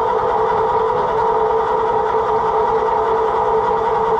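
Case VAC tractor's engine being cranked over by its electric starter: a steady starter whine over a fast, even beat of compression strokes, with the engine not catching.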